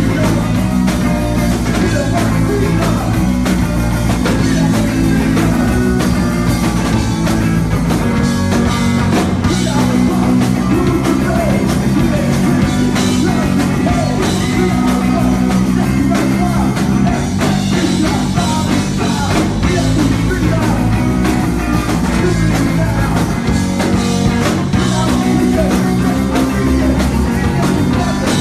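Punk rock band playing live: a singer's vocals over electric guitars and a drum kit, loud and dense with no breaks.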